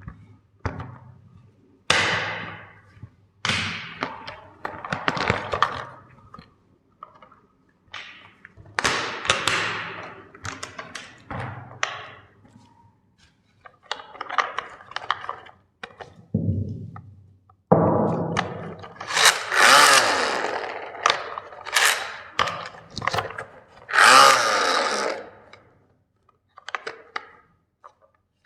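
Toy packaging being opened by hand: irregular bursts of crinkling plastic and cardboard handling, busiest and loudest past the middle.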